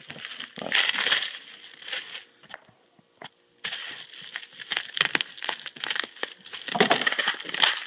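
Bubble wrap crinkling and rustling in irregular bursts as a wrapped package is handled, with a short near-silent pause a little over two seconds in.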